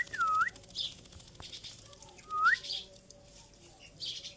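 Two short clear whistles, the first dipping and rising again near the start, the second a rising sweep about two and a half seconds in. They come with brief high chirps from a rose-ringed parakeet.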